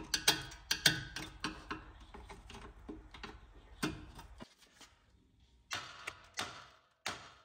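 Screwdriver scraping and clicking against a bolt on a car's front upper control arm, a run of irregular light metal ticks and scrapes. After a short quiet gap, three brief scratchy noises.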